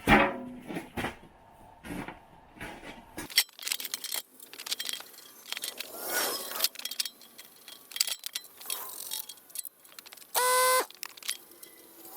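A run of sharp clicks, knocks and scrapes, with a low rumble that cuts off about three seconds in and a short, pitched beep near the end.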